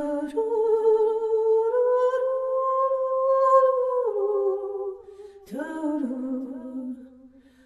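Music: a wordless voice humming long held notes that slide slowly between pitches, in two phrases, the second beginning about five and a half seconds in.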